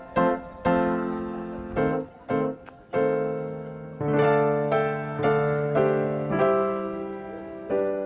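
Background music: a piano playing slow chords, each struck and left to fade, with a new chord about every second.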